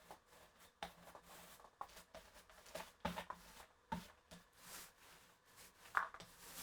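Irregular light knocks, clicks and rustles of objects being handled, with a sharper knock about six seconds in.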